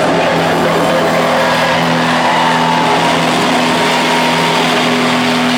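Loud concert-hall crowd noise with a steady low droning tone from the stage amplification, as a funk-rock song ends. No drums or rhythm; a few wavering higher tones rise over the noise.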